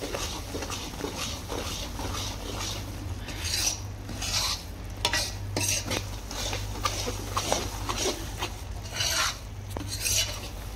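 Metal ladle (kadchhi) scraping and knocking against a kadhai as roasting dal flour and besan in ghee are stirred, in irregular repeated strokes with a little sizzling. The mixture has roasted loose and fluffy, so the ladle sounds out freely.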